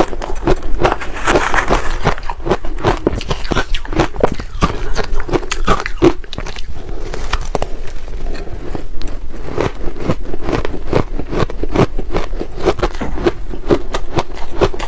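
Ice being bitten and chewed, a dense, uneven run of sharp crunches and crackles.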